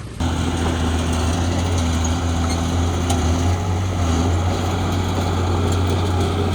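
Heavy earthmoving machine's diesel engine running steadily with a deep, even drone, cutting in abruptly just after the start.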